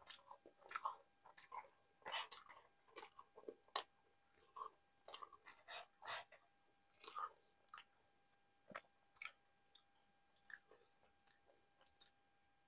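Close-miked chewing and wet mouth smacks from someone eating nihari with naan: a quick run of short clicks and smacks that thins out after about seven seconds.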